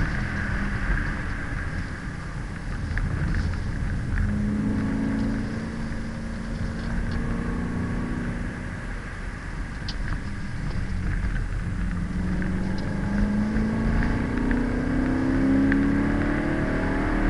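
BMW E90 M3's V8 engine heard from inside the cabin while lapping a track, with a steady hiss of tyre and road noise. The engine note rises about four seconds in, holds, then climbs steadily over the last five seconds as the car accelerates.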